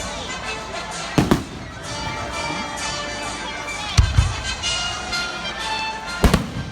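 Fireworks going off: three loud bangs, about a second in, about four seconds in and near the end, each followed quickly by a second crack, with background music between them.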